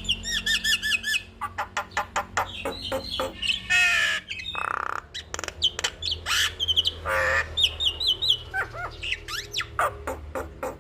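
Javan myna singing a varied, fast song that mixes quick runs of repeated chirps, whistled glides and harsh squawking notes.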